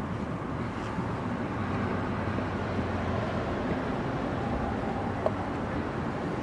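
Steady low rumbling background noise, with one small sharp click about five seconds in.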